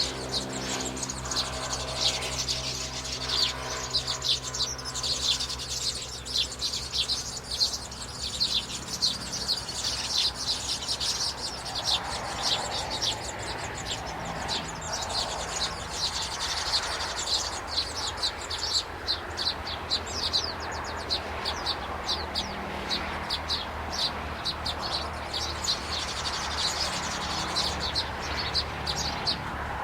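Small birds chirping in a rapid, continuous chatter of high-pitched notes.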